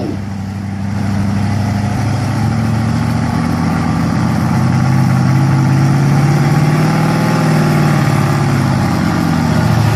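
Pulling pickup truck's engine running at a low, steady speed. It slowly rises through the middle and settles back down near the end.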